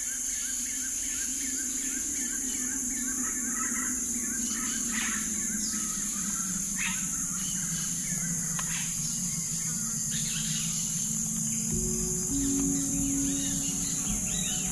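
Birds chirping and calling over a steady high insect hum, with low, held music notes coming in strongly near the end.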